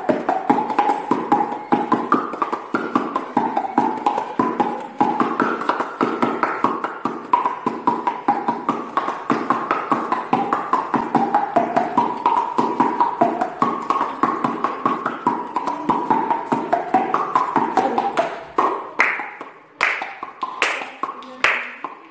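Hand-and-mouth music by two boys: quick pitched pops made by striking cupped hands against their open mouths, playing a tune that steps up and down. Near the end the playing breaks into a few sharper, more spaced slaps or claps.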